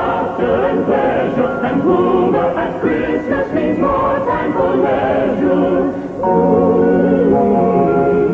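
Choir singing with musical accompaniment. About six seconds in it gives way to a louder passage of long held notes.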